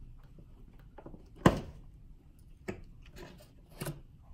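Flathead screwdriver prying the plastic pins out of a Jeep Wrangler grille: four sharp clicks and knocks, the loudest about a second and a half in.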